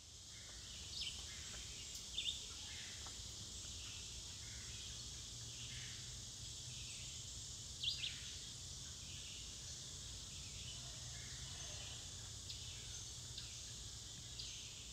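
Summer outdoor ambience: a steady high insect drone, with a few short bird chirps, the clearest about two seconds and eight seconds in.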